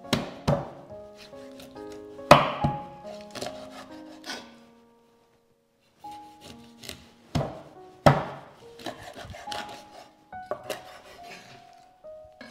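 A knife chopping through fish, a handful of sharp chops with pauses between them, over instrumental background music.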